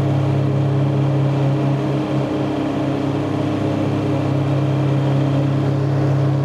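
Tractor engine running steadily under load, powering a 12-foot Woods Turf Batwing rotary mower cutting grass, a constant engine-and-blade hum. The pitch dips slightly for a moment about two seconds in.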